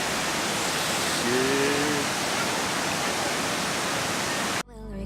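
Waterfall's steady rush of falling water, with a brief voice about a second and a half in. Near the end the water sound cuts off abruptly and music starts.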